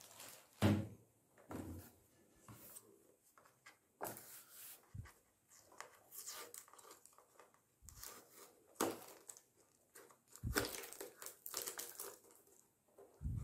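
Hands handling a cardboard retail box: irregular rustling and scraping of the cardboard, with a paper seal sticker being picked at and peeled off. Several thumps as the box is set down and turned, the loudest near the start.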